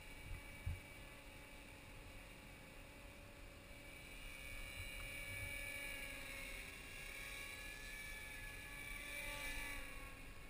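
Small electric RC helicopter (Align T-Rex 250 in a Hughes 500E scale body) in flight, its motor and rotor giving a faint high whine. The whine gets louder from about the middle and its pitch shifts near the end as the helicopter manoeuvres. Two brief low thumps come just after the start.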